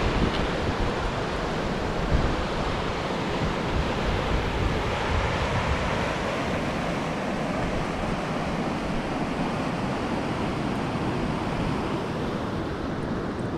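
Steady rush of river water, the Linville River running over rocks, with uneven low buffeting from wind on the microphone.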